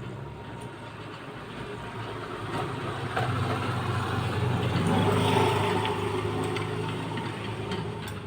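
Low, rasping snoring that swells to its loudest about five seconds in and then eases off.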